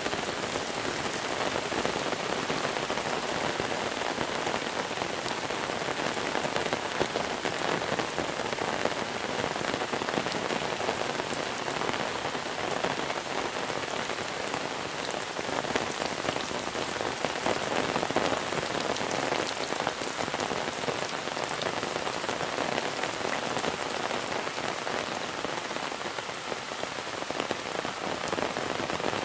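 Steady monsoon rain falling, a dense patter of drops with no break.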